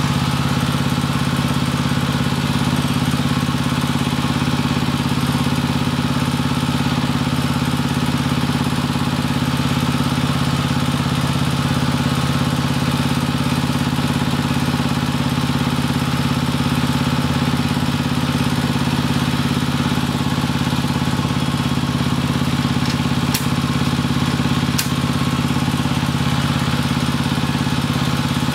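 Pump unit of a flow-meter test rig running steadily with a loud, even drone, driving liquid through a Tokico 2-inch flow meter during a calibration run. Two sharp clicks sound near the end.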